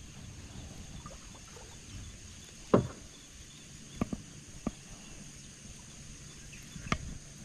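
A few hollow knocks and thumps on a fishing boat, the loudest about three seconds in, with smaller ones about a second later and near the end, over a steady faint high-pitched hum.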